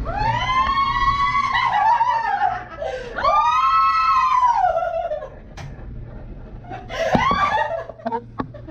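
A woman shrieking and laughing: two long, high-pitched squeals of about two seconds each, then a shorter one about seven seconds in.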